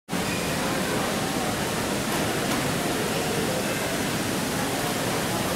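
Steady, even rushing noise with no distinct events or tones.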